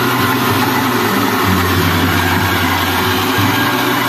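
Small electric rice milling machine running steadily under load, milling paddy, while milled rice pours from its outlet chute into a bucket.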